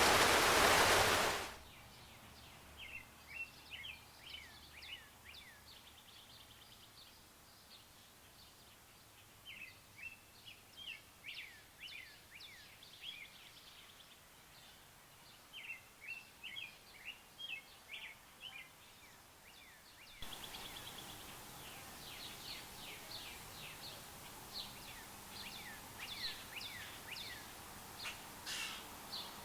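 Rain hiss cuts off about a second and a half in, giving way to small birds singing: repeated bursts of quick chirps over a faint outdoor hiss. About two-thirds of the way through, a second outdoor take starts with louder background hiss and more chirping.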